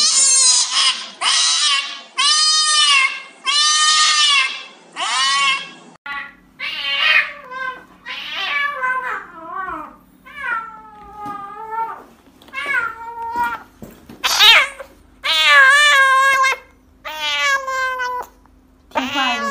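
Kittens crying out while being given injections. First come about five loud, long yowls, roughly a second apart. Then, about six seconds in, a second kitten meows over and over in shorter cries, with one long falling wail near the middle. These are cries of fear and protest at the needle.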